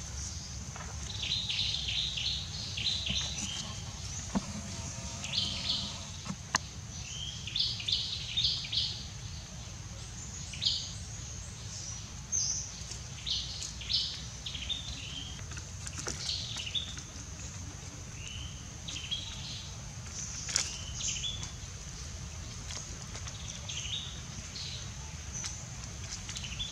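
Wild birds chirping in many short, repeated calls over a steady high-pitched hum, with a few faint clicks.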